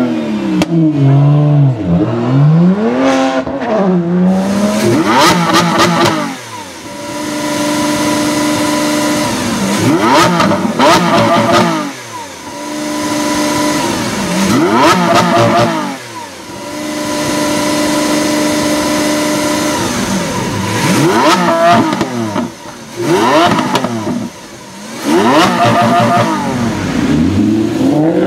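A car's engine accelerating away with rising and falling revs, then a Lamborghini Aventador's V12 revved repeatedly while stationary: each rev climbs, holds a steady high note for a second or two, then drops back. Near the end another car's engine revs up again.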